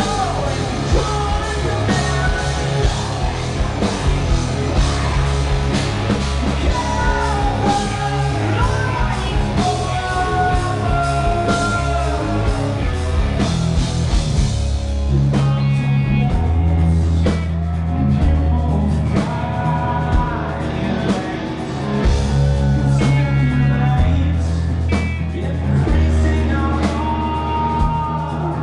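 A rock band playing live: a male lead singer sings over electric guitars, bass and drum kit. About halfway through, the bright crashing top end drops back, leaving a heavier bass-and-guitar groove under the singing.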